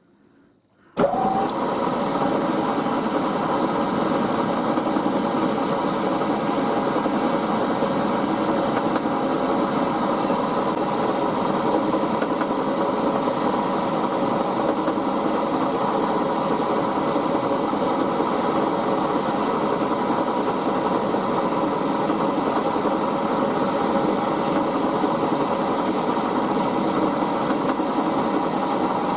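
Milling machine running steadily, its motor and spindle giving a constant mechanical hum with several fixed tones; it starts abruptly about a second in.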